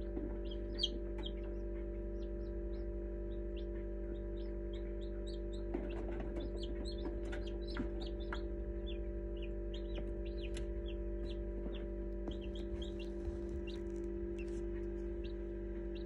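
Newly hatched chicks peeping: many short, high peeps, several a second, over the steady hum of the incubator.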